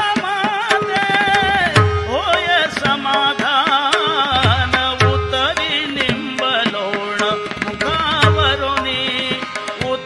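Indian devotional music: tabla keeping a rhythm, with a deep bass stroke about every second and a half and many quick sharp strokes between. Over it runs a melody line with wavering, ornamented pitch and short glides.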